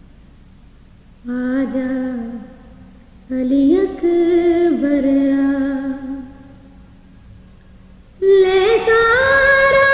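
A woman singing a noha, a mournful Urdu lament, in three drawn-out phrases with pauses between them; the last phrase comes in near the end and is louder.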